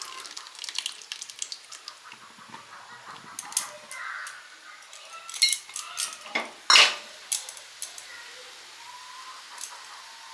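A spoon clinking and scraping irregularly against an aluminium pot as lemon juice is stirred into boiling milk to split it into chhena curds. The single loudest clink comes a little past halfway, and the clinking stops near the end.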